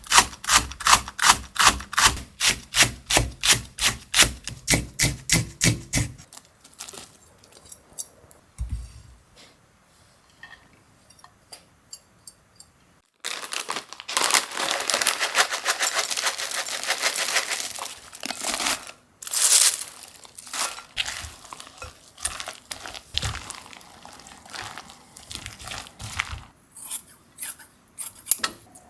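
A kitchen knife chopping on a cutting board, about three strokes a second for six seconds. Then scattered light clicks and taps, and a few seconds in the middle of steady rasping scraping.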